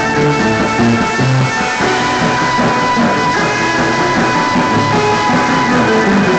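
Surf/garage-punk rock band playing live, with electric guitar and drum kit.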